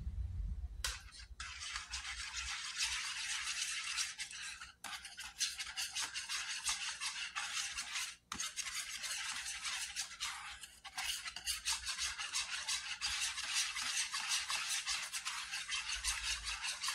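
Wire whisk beating eggs and hot sauce in a plastic bowl: a fast, steady, scratchy clatter of the wires against the bowl. It starts about a second in and breaks off briefly three times.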